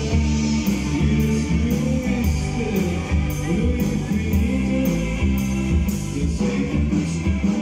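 Live rock band playing through the stage PA: electric guitars over bass and drums, with cymbal hits about twice a second.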